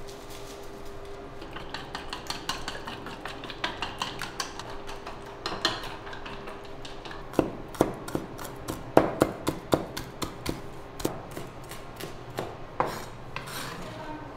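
Cleaver chopping green onions on a wooden cutting board: a run of light, quick taps, then heavier irregular knocks about two a second from about seven seconds in.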